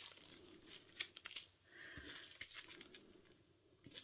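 Faint crinkling and rustling of small plastic zip-lock bags of diamond-painting drills being handled and set down, with a few light clicks about a second in.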